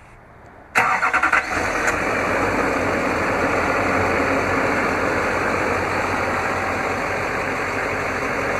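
A 6.6-litre Duramax V8 diesel starting: about a second in, a short burst of quick cranking strokes, then it catches and settles into a steady idle.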